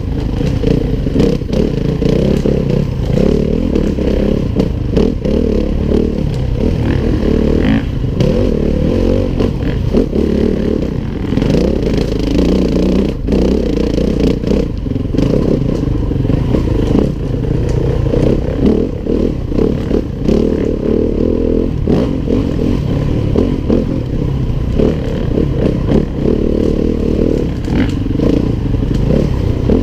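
Four-stroke enduro dirt bike's engine running under constantly changing throttle, heard from the rider's helmet, with frequent clattering knocks from the bike over rough ground.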